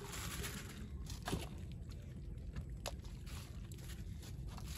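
Steady low rumble of wind and water around a small wooden boat, with a few faint clicks and rustles from picking through the net's catch and plastic litter with tongs.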